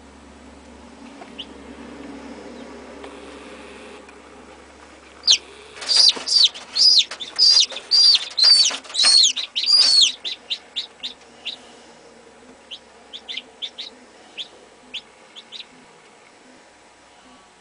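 Chicken chick peeping: a quick run of loud, high chirps about two a second, starting about five seconds in, then thinning out to scattered quieter peeps.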